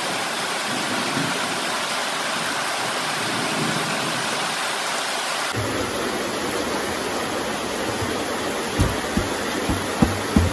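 Heavy rain falling steadily, a constant hiss. Near the end come several short dull thumps as hands press and pat the lid of a plastic drum shut.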